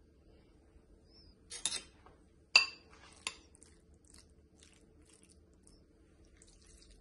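A metal spoon and a white serving bowl knocking together as they are handled. There is a short clatter about one and a half seconds in, then one sharp, ringing clink about a second later, and a lighter click just after.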